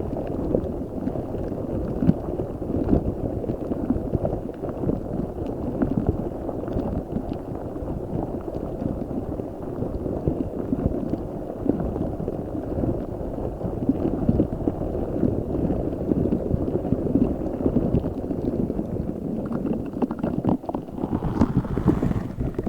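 Giant spiky squishy ball filled with Orbeez water beads being squeezed and kneaded by hand, making a continuous, dense squelching crackle.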